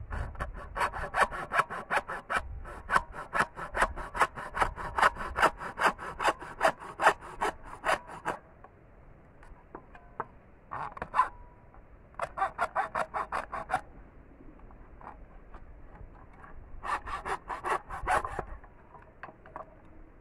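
Hand hacksaw cutting through bamboo: quick back-and-forth rasping strokes for about eight seconds, then three shorter runs of strokes with pauses between them.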